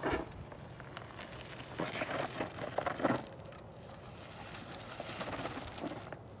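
Loose gravel and dirt crunching in short, irregular bursts under the tyres of a BMW R1250GS Adventure as it creeps down a steep, loose slope, with a low steady hum underneath.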